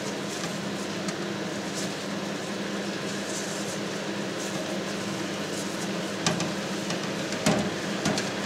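Wet cheesecloth being folded and smoothed by hand over a cheese mould standing in a water bath, over a steady mechanical hum. A few knocks come in the second half.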